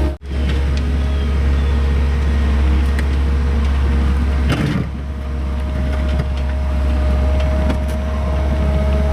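Skid steer's diesel engine running steadily with a deep drone, and a brief clatter about halfway through.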